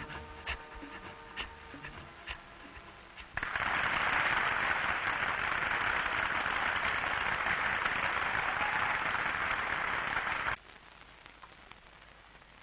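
The last moments of a song, with a few sharp percussive hits, then a large audience applauding steadily for about seven seconds before the applause cuts off abruptly.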